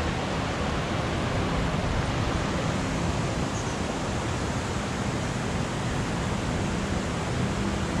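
Steady rushing of a river tumbling over rapids and a weir, an even wash of water noise with no break.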